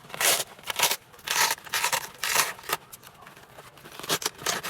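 Nylon crossbody bag being handled and packed, making a series of short scraping, rustling strokes, about seven in all.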